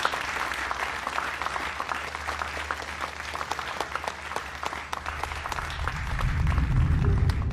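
A room of people applauding, a dense patter of hand claps that thins out toward the end, with a deep low rumble swelling in during the last couple of seconds.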